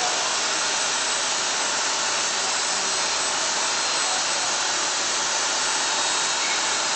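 Steady, even machine noise of a CNC machine's diamond bit cutting stone, with a hiss that runs unbroken at a constant level.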